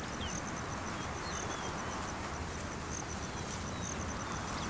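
Bush ambience: an insect chirping in a rapid, even pulse over a steady hiss, with a few faint, short bird whistles.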